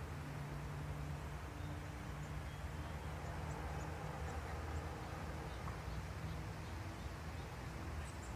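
Quiet outdoor ambience: a steady low hum with faint, short high chirps of small birds scattered through it.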